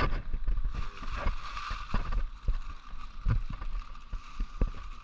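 Water sloshing around a small boat, with many scattered small knocks and clicks over a steady hiss.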